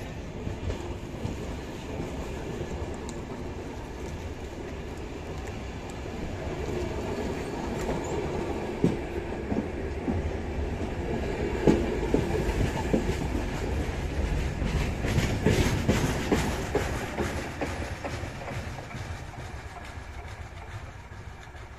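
Passenger train coaches rolling away from the station, wheels rumbling and clicking over the rail joints with a few sharp clanks. The noise builds to its loudest about fifteen seconds in, then fades as the last coach draws off.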